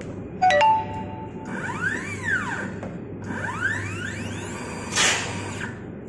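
Wire-harness taping machine at work. A short electronic beep comes first. Then the motorized tape head spins up and back down twice, each time a whine that rises and then falls in pitch, over a steady hum. A short noisy burst comes near the end.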